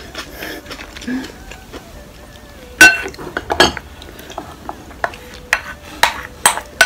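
Wooden spoon knocking and scraping against a ceramic soup bowl as soup and rice are scooped up. There are several short, sharp knocks at uneven intervals, the loudest about three seconds in.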